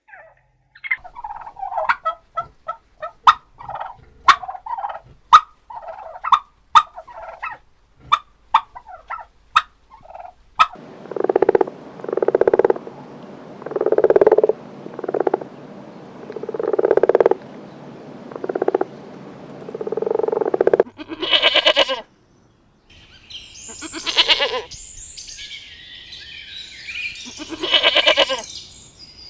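Farm animal calls of several kinds in turn: a run of short, sharp calls for the first ten seconds, then a series of lower calls repeating about once a second, then higher, longer calls near the end.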